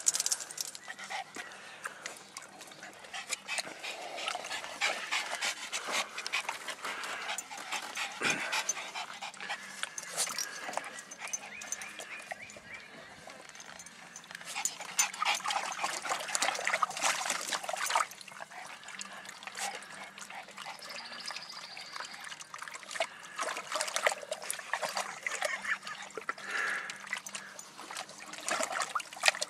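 Miniature dachshund splashing and snapping at the water in a shallow plastic wading pool, irregular splashes and bites, with a garden hose trickling water into the pool.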